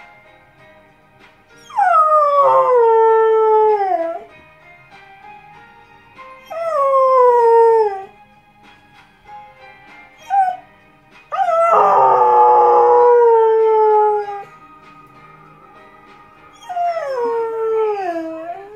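English springer spaniel howling four times, each howl a long note that slides down in pitch, the third the longest. It howls along to a television theme tune playing faintly underneath.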